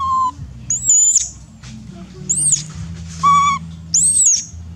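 Baby macaque crying: five short, loud, high-pitched calls, some rising and falling in an arch, two held on one steady pitch.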